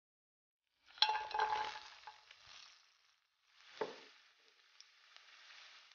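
Sliced garlic going into hot olive oil in a frying pan and sizzling: a burst of sizzling about a second in that fades away, then a second stretch of sizzling with a single knock, settling into a faint steady sizzle.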